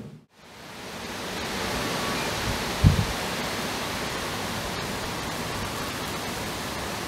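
Boeing 747-8F freighter's GEnx engines heard from far below as a steady, even jet roar, fading in after a short break at the start. A brief low thump about three seconds in.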